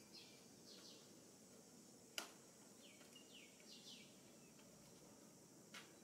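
Near silence: faint short chirps, two or three at a time, in the background, with a single sharp click about two seconds in.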